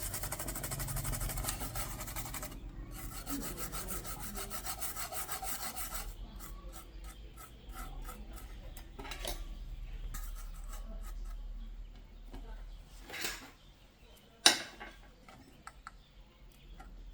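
Rapid, even rasping strokes of a tool scraping or filing against a hard part, with a short break, lasting about six seconds. Then quieter scattered ticks and clicks, and one sharp, loud click late on.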